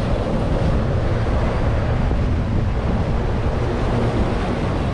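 Wind buffeting the microphone in a steady low rumble, with the outboard motor of a passing center-console boat running underneath it.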